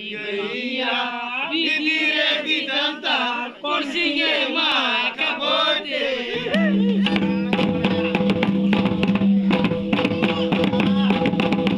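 Men singing together. About six and a half seconds in, rapid drumming comes in on tumdak barrel drums and a tamak kettledrum beaten with sticks, over a steady held tone.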